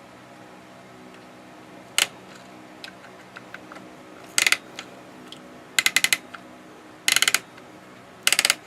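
Carriage coil spring of a 1926 Underwood typewriter being wound up: the winding ratchet clicks once, then in four quick runs of several clicks each as the spring is tightened.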